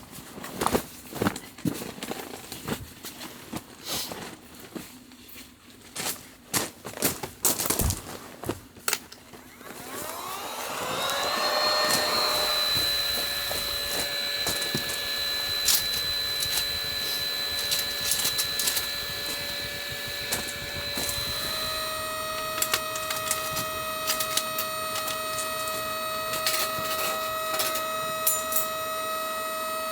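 Scattered knocks and clatter of gear being handled, then a small electric motor spins up with a quickly rising whine and runs steadily at a fixed pitch; about two-thirds of the way in a second, lower steady tone joins it.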